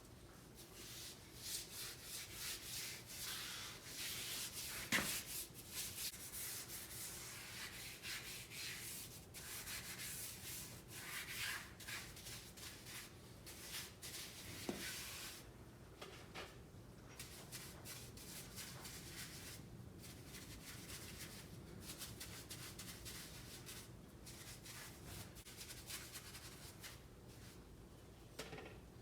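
Repeated hand scrubbing strokes on a lathe part, with two sharp knocks about five and fifteen seconds in. The strokes grow fainter in the second half.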